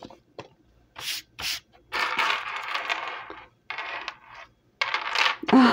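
Metal costume jewelry being handled, clinking and rattling in a series of short bursts with brief pauses between, and a longer jingling run near the middle.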